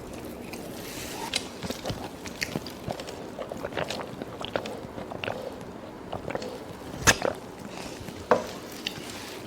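Close-up eating sounds: chewing and biting on fried instant noodles and fried chicken, with scattered small clicks. There are two sharper knocks, about seven and eight seconds in.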